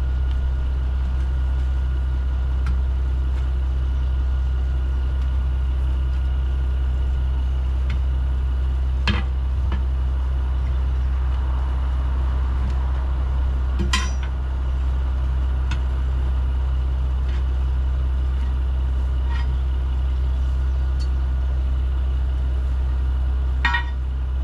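A steady low drone, like an idling truck engine, with a few sharp metal clinks of tire irons against the wheel rim, the loudest about halfway through and a cluster near the end.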